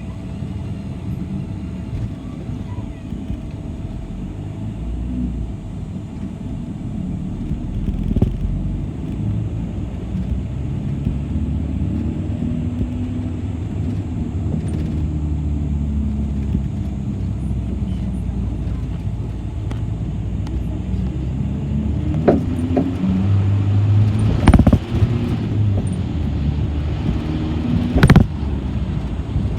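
Low, steady rumble of a moving city bus heard from inside the cabin, with engine and road noise. In the last third come several sharp knocks, the loudest near the end.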